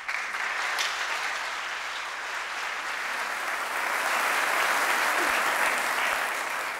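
Audience applauding steadily, starting all at once and fading out near the end.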